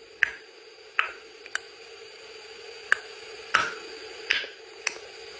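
A series of sharp, short clicks, about seven at irregular intervals of half a second to a second and a half, over a steady faint hum.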